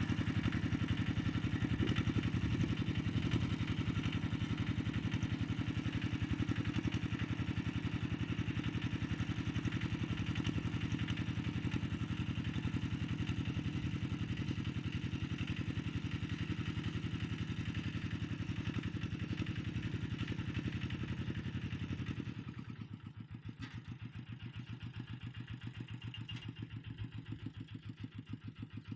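Engine of a walk-behind tractor ploughing, running steadily. About 22 seconds in it drops to a quieter, slower idle with distinct firing beats.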